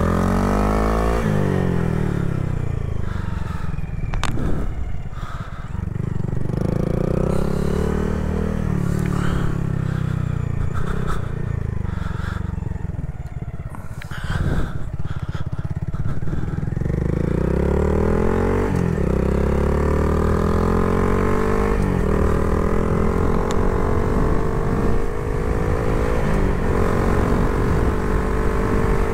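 Honda Grom's 125 cc single-cylinder four-stroke engine under riding load. It slows down and runs low through the middle, with a couple of sharp knocks. From about two-thirds in it accelerates in stepped rises through the gears, settling into a steady cruise near the end.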